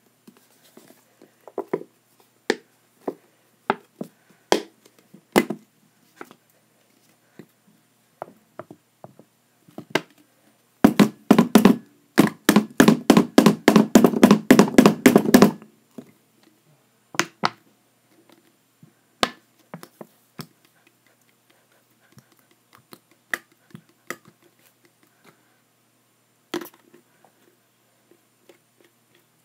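Knocks and taps from handling containers while adding lotion to slime: scattered single clicks, then a fast run of knocks, about five or six a second, for some five seconds near the middle.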